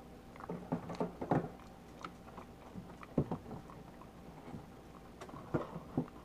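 Java macaque chewing and smacking on mouthfuls of beef pot roast: irregular wet clicks and smacks with short pauses between them, busiest in the first second and a half.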